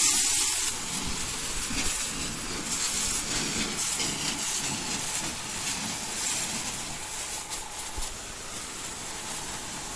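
Water jetting from a hose spray nozzle against a tractor's steel wheel rim and tyre: a steady hiss of spray.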